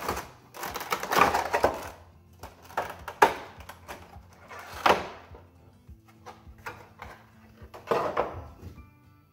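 Stiff plastic packaging crinkling and clattering as a clear plastic cover is pulled off a molded plastic tray holding a model train passenger coach. The handling comes in several irregular bursts, loudest about a second in, near five seconds and near eight seconds, with faint music underneath.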